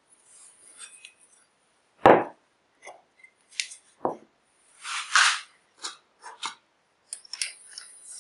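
Workshop handling sounds: a loud wooden knock about two seconds in and a duller thud near four seconds as plywood blocks and a steel square are set down on the bench, a scraping slide around five seconds, then light clicks and rustling as a strip of measuring tape is handled near the end.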